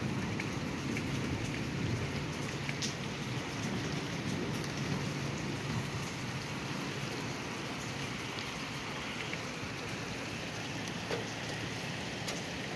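Steady rain during a thunderstorm, with scattered drops tapping close by and a low rumble through the first half that fades out.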